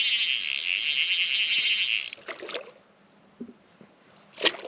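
Fly reel's drag buzzing fast and steadily as a hooked rainbow trout runs line off the spool. It cuts off abruptly about two seconds in, leaving faint splashes.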